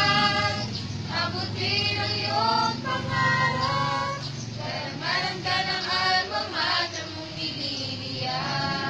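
A choir singing a hymn, phrases of long held notes with short breaks between them.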